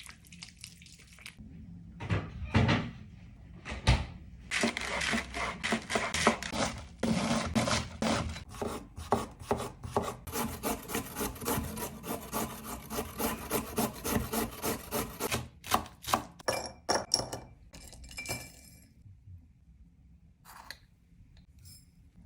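Knife chopping food on a wooden cutting board: a few single knocks, then a long run of quick, even cuts several a second that stops about fifteen seconds in, followed by a few lighter taps and rubs.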